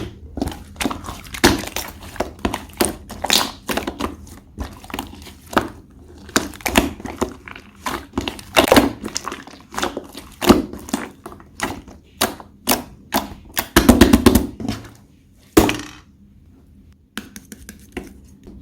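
Slime being pressed and squeezed by hand, making a dense run of sticky pops and clicks of varying loudness. The pops stop for about a second near the end, then a few more follow.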